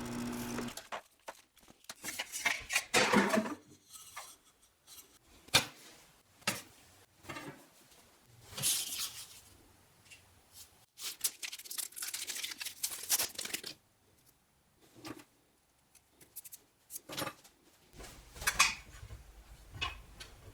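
Workshop handling sounds: irregular scrapes, rustles and sharp clicks and knocks of hand work on small parts, with short quiet gaps between them.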